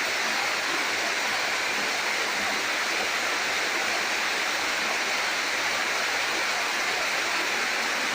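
Monsoon rainwater pouring down as a seasonal waterfall: a steady, even rush of falling and splashing water.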